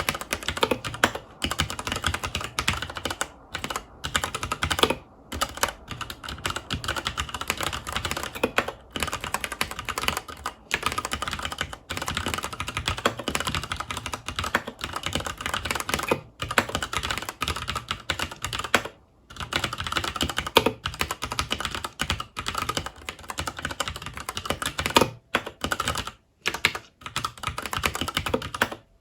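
Typing on a FILCO Majestouch 2 mechanical keyboard with Cherry MX Brown switches: a fast, continuous run of key clacks with a few short pauses.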